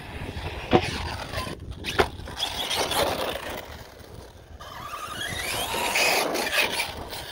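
Electric RC monster truck with a brushless motor driving on dirt and grass. Two sharp knocks come about a second and two seconds in, then near the end a whine climbs in pitch as the motor spins up under throttle.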